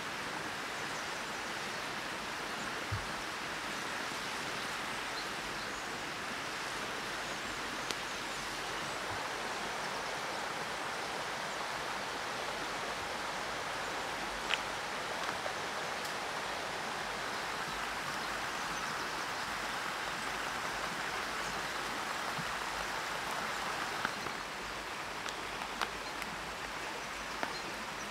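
Steady rushing of a forest stream, with a few faint clicks and taps from handling on top; the rushing drops slightly in level near the end.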